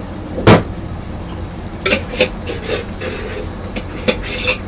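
Handling of a glass tomato-sauce jar: one sharp knock about half a second in, then clusters of clicks and rattles around two seconds in and again near the end, as the jar is rinsed out to use the last of the sauce. A steady low hum runs underneath.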